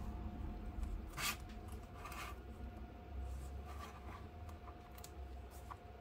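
Gloved hands rubbing and pressing on a tablet's glass screen and frame: two short scratchy rubs about one and two seconds in, then fainter ones, over a faint steady hum.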